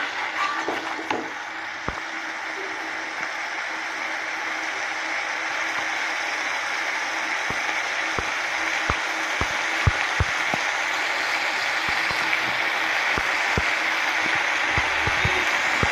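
Beef pieces frying in a pan on high heat: a steady sizzle with scattered sharp pops and crackles, more of them in the second half. The gravy has cooked down and the beef is starting to fry dry. A spatula stirs through it at the very start.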